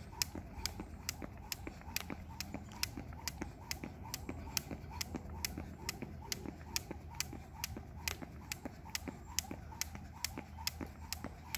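Jump rope skipping on asphalt: the rope slapping the pavement and sneakers landing make a steady rhythm of sharp ticks, about two a second.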